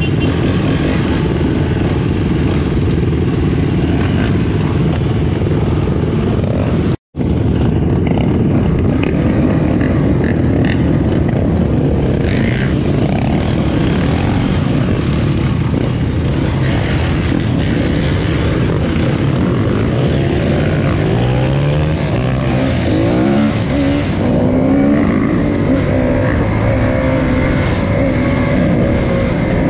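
Off-road motorcycle engine running while riding a dirt trail, its pitch rising and falling as the rider works the throttle. The sound drops out for an instant about seven seconds in.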